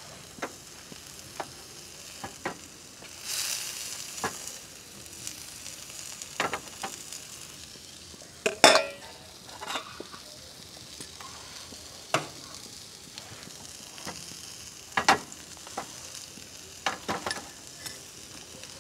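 Marinated whole pearl spot fish (karimeen) sizzling on a hot, wet griddle pan: a steady frying hiss with sharp pops and crackles every few seconds, the loudest a little under halfway through.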